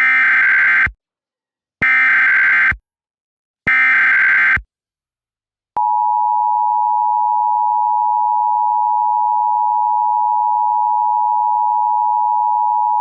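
Emergency Alert System tones: three short buzzing bursts of SAME header data, each about a second long, then from about six seconds in the steady two-tone EAS attention signal. Together they announce the start of an emergency alert.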